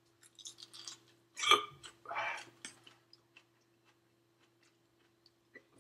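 Mouth sounds of chewing a small raw white habanero pepper. About a second and a half in there is one sharp hiccup, then a breath out. After that come quiet, wet clicks of chewing.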